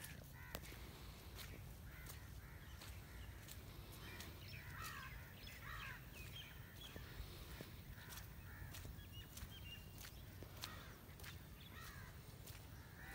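Faint crows cawing now and then, several calls clustered about four to six seconds in, over a low steady background with scattered light clicks.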